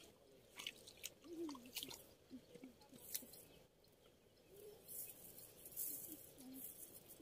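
Faint clicking and rustling of a cast net being gathered and lifted, its weighted edge knocking on river stones, with a few short low calls in the background.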